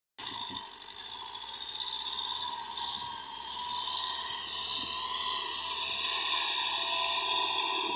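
TAFE 5900 DI tractor's diesel engine running steadily under load as it pulls a tillage implement through the field.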